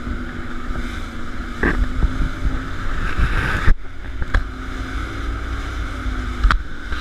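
Inflatable tour boat's engine running at speed, with water rushing and splashing along the hull and wind buffeting the microphone. Several sharp thumps come as the boat bounces over the chop, the loudest a little past halfway.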